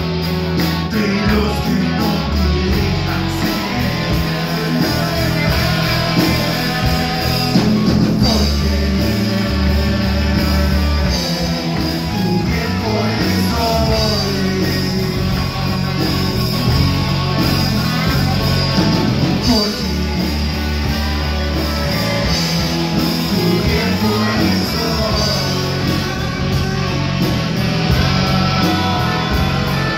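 Rock band playing live, with electric guitars, bass and drums, and a singer singing into a microphone over them.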